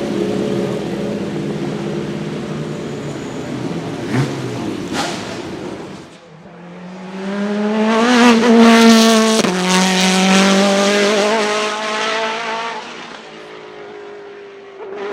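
Naturally aspirated GT1 racing car engine at high revs. About six seconds in it gives way to a car passing close: the engine climbs in pitch and is loudest around eight to nine seconds, drops sharply on an upshift, then fades away.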